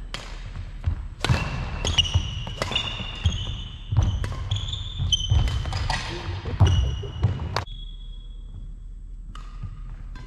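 Badminton rally on a wooden sports-hall court: sharp racket strikes on the shuttlecock, short high squeaks of court shoes and thudding footsteps, echoing in the hall. The rally stops about three quarters of the way through.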